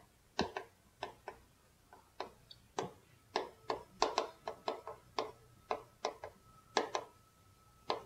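Chalk tapping on a chalkboard as a line of writing goes up: sharp, irregular taps, a few each second.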